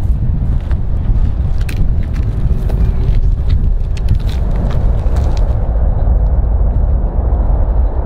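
Jet engines of a large multi-engine aircraft on the runway, a loud steady low rumble that swells in the second half, with crackling and wind buffeting the microphone.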